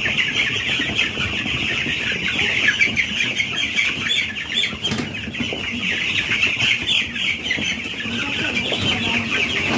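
A brooder full of broiler chicks peeping continuously, many high chirps overlapping.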